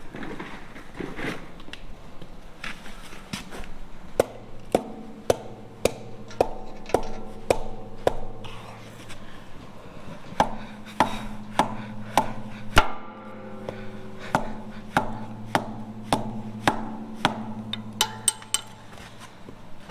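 Hammer blows through a wooden block onto the brake drum of a Centurion tank gearbox, sharp knocks about two a second with a short pause partway through, the metal drum ringing after each strike. The banging is done to take up the brake adjuster until it stops clicking.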